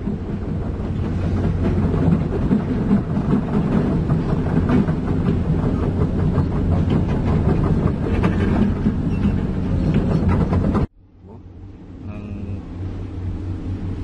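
Komatsu PC200 excavator's diesel engine running close by, with a steady low rumble and a busy metallic clatter of its crawler tracks. The sound cuts off sharply about eleven seconds in and a quieter engine rumble follows.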